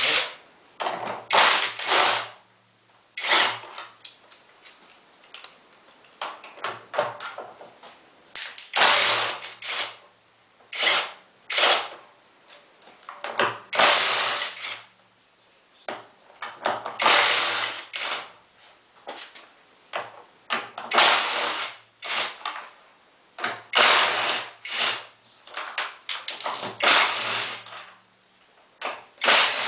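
Cordless drill-driver running in short bursts of about a second, again and again, driving screws to refit a washing machine's panel, with clatter of handling between the bursts.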